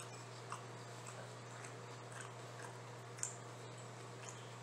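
Person chewing food close to the microphone: small wet mouth clicks and smacks about every half-second, the loudest a little past three seconds in, over a steady low hum.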